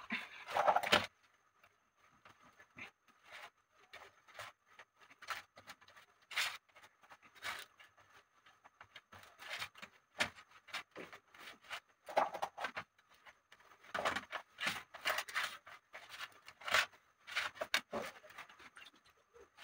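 Scattered light clicks, knocks and scrapes of kitchen utensils being handled during cooking. They come in irregular clusters, busier in the second half.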